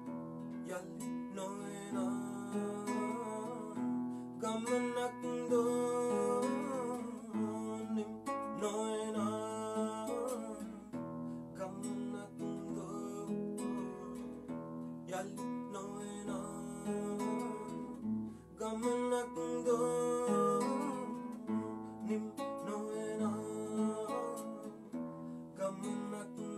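Acoustic guitar being strummed and picked in a song, with a man singing along.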